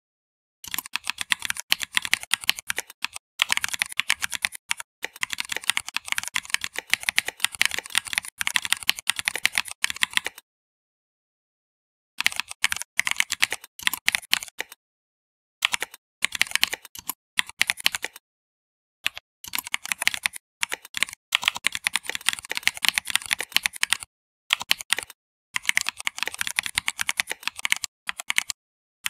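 Typing on a computer keyboard: rapid key clicks in runs of a few seconds, broken by short pauses about ten seconds in and a few more times after.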